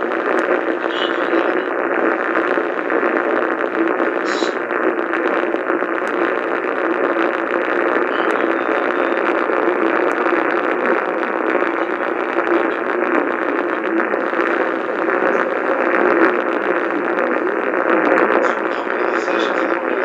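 Steady static hiss from an AM radio tuned to 1430 kHz, with no programme audio coming through, just noise with a few faint crackles.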